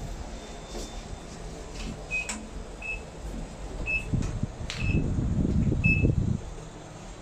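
Otis lift car buttons being pressed, each press answered by a short high beep: about five beeps with a few sharp clicks. A low rumble rises around the middle and stops a little after six seconds in.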